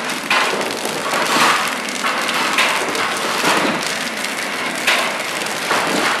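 Refuse-bag packing machine running, with rolls of plastic bags fed along its stainless steel conveyor: a steady crackly, rustling clatter with louder bursts roughly once a second.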